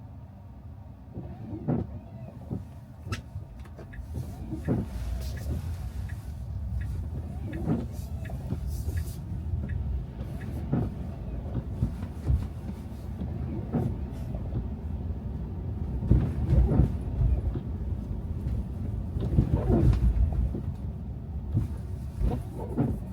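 Car cabin sound while driving on snowy roads: a steady low rumble of tyres and engine, with a short swish-and-knock recurring about every three seconds.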